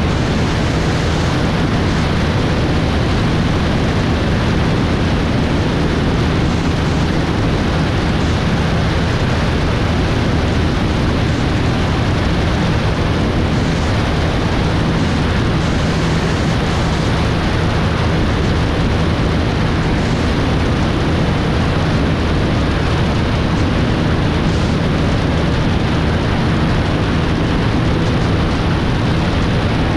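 Steady rush of airflow over a wing-mounted action camera in flight, over the constant low drone of a Grumman Tiger's four-cylinder Lycoming O-360 engine and propeller.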